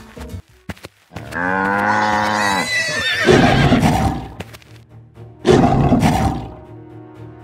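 Cartoon animal sound effects over background music. A long call, held at one pitch for about a second and a half, comes about a second in. A rough roar follows, and a lion roars again about five and a half seconds in.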